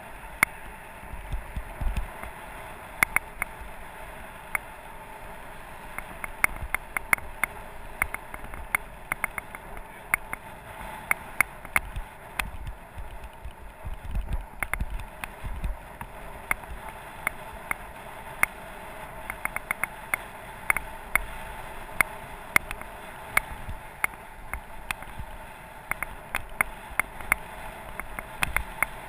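Bicycle rolling on pavement, heard from a camera riding along: a steady rush of wind with gusty low buffeting and frequent sharp clicks and rattles as the bike jolts over the road.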